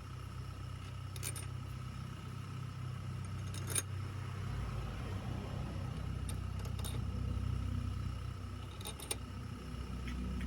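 Metal tools and parts clinking a few times, in short sharp knocks, over a steady low mechanical hum.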